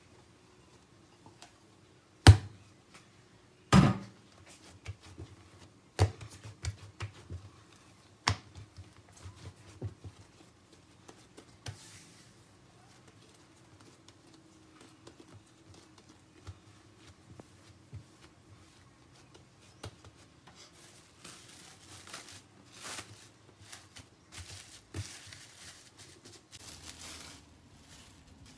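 Dragon fruit bread dough kneaded by hand on a stone countertop: several loud thumps in the first ten seconds, then softer squishing and pressing, with a longer run of rustling and rubbing near the end.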